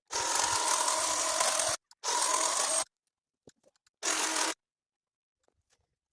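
A power cutting tool, the mini chainsaw or the hedge trimmer used on the overgrown bush, run in three short bursts of a steady motor whine, the first the longest, each cut off abruptly as the trigger is let go.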